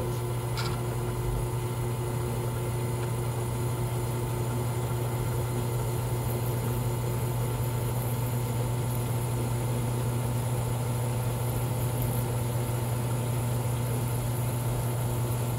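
Drill press running steadily, its bit boring through a clamped stack of aluminum plates.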